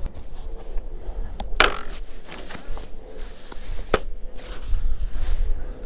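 Handling noise as gear is strapped under the bungee cords on a kayak deck: two sharp clacks about two seconds apart, with a few lighter ticks, over a steady low rumble of wind on the microphone.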